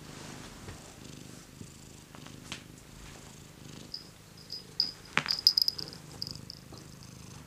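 Domestic cat purring steadily. About four seconds in, the small bell on its collar jingles in a run of short high pings as the cat shifts and gets up, with one sharp knock about five seconds in.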